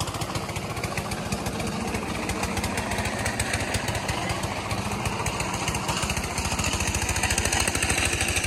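Engine of a site machine running steadily, with a fast, even beat.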